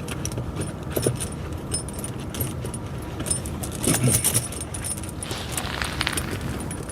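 Steel tractor tire chain links clinking and jangling as the chain is worked over the tire tread, with a cluster of louder clinks about four seconds in.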